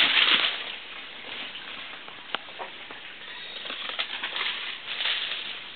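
Rustling and crackling of brush and leaves, with scattered sharp snaps like twigs breaking. Loudest in the first half-second, then fainter.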